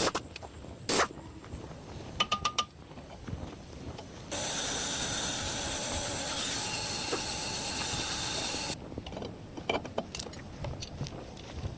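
Light metallic clicks and knocks of hand work, then a steady hiss of a pressurised spray lasting about four seconds, followed by more scattered knocks.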